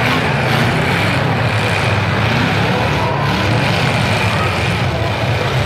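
Demolition derby cars' engines revving and running, loud and steady, coming up sharply right at the start.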